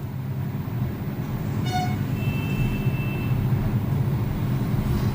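Steady low rumble of road traffic, with a short horn toot a little under two seconds in, followed by a high, steady beep lasting about a second.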